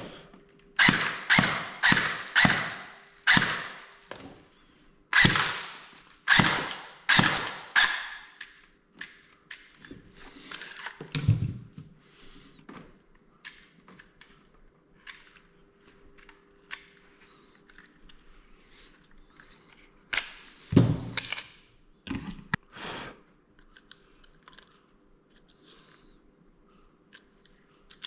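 Sharp clacks and knocks from handling the Cyma CM030 airsoft pistol, about two a second at first, then scattered quieter clicks and another few loud knocks about three-quarters of the way through. A faint steady hum runs underneath.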